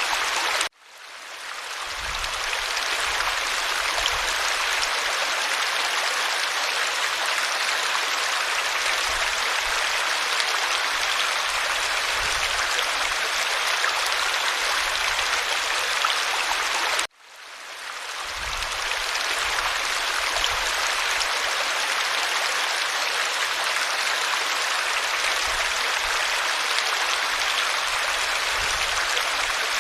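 Stream water running and babbling steadily. It cuts out suddenly twice, about a second in and again about 17 seconds in, each time fading back up over a second or two.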